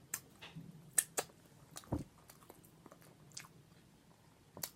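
A person chewing food with the mouth close to the microphone, heard as a handful of separate wet smacks and clicks spread through otherwise quiet moments.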